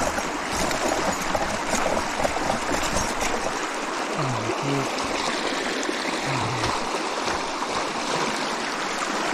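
Creek water running and trickling steadily along the edge of snow-covered ice.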